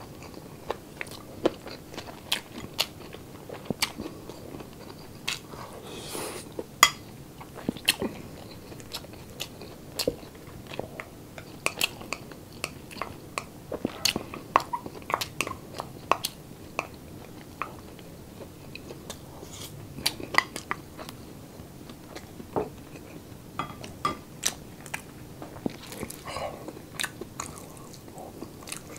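Close-miked chewing of crispy pork sisig made from pig ear and jowl, mixed with rice: a long run of irregular sharp crunches between softer chewing.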